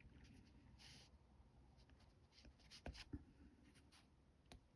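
Faint scratching of a black Caran d'Ache Neocolor II wax pastel crayon on rough cotton rag paper, in short strokes, with a few soft taps.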